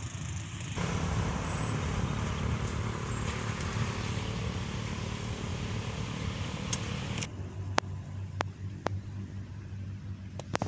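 Road traffic: a steady engine hum and road noise. About 7 s in the sound changes and the high end drops away, followed by a few sharp clicks.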